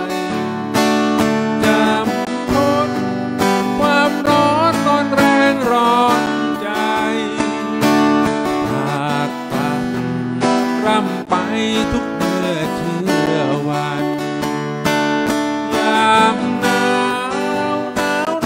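Steel-string acoustic guitar strummed in a steady rhythm while a man sings.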